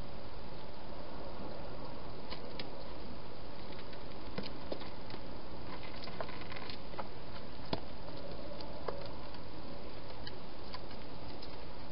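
Scattered faint clicks and small rustles of a wild hedgehog moving and foraging, over a steady background hiss.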